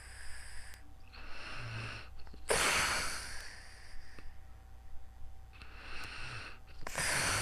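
A sleeping person breathing heavily with light snoring, in a slow cycle: loud airy breaths about two and a half seconds in and again near the end, with softer breaths between that carry a short low snore.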